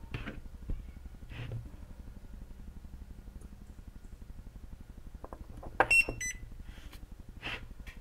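BIFRC battery spot welder firing on its fifth power mode, welding nickel-plated steel strip to a lithium cell. About six seconds in come two short high beeps from the welder with sharp snaps of the weld pulses, the loudest sounds here. Faint clicks from handling the pens come before and after.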